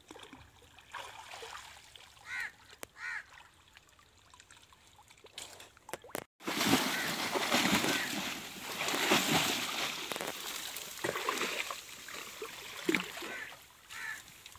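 Shallow water splashing and sloshing as people wade and grope through it among reeds, loud and irregular, starting abruptly about six seconds in. Before that it is quieter, with a bird calling twice.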